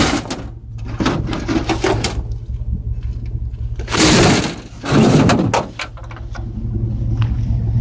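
Computer tower case being slid and set down in a pickup truck bed: scrapes and knocks, with two louder scraping rushes about four and five seconds in. A vehicle engine idles steadily underneath.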